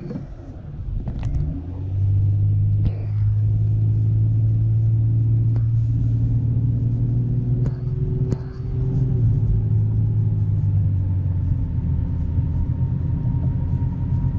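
A car driving at road speed, heard from inside the cabin: a steady low drone of engine and road rumble that swells about two seconds in and then holds level. A few light clicks sound over it.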